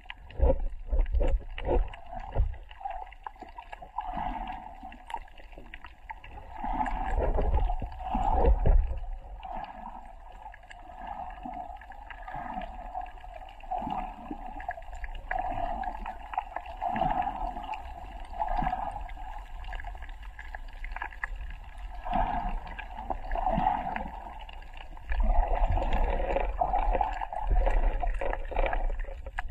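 Water moving around an action camera held underwater, heard muffled through the housing, with low rumbles that swell a few times, loudest about eight seconds in and again near the end.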